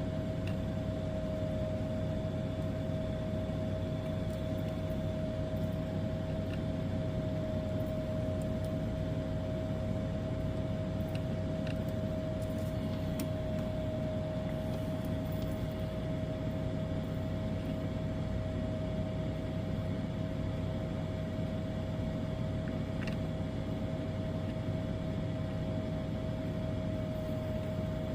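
Steady machine hum with a constant mid-pitched whine over it, unchanging throughout; a few faint clicks.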